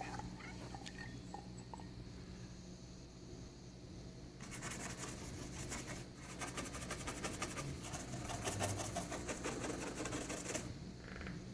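Rapid scrubbing strokes of baking soda and water paste being rubbed on car paint to take off a scuff. The scrubbing starts about four seconds in and stops about a second before the end.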